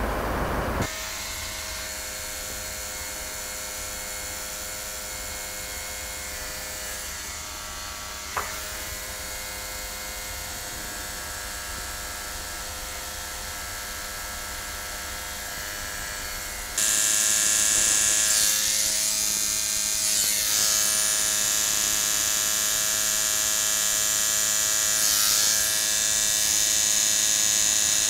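A steady hum of several held tones, with a short click about eight seconds in. The hum gets abruptly louder and brighter about seventeen seconds in.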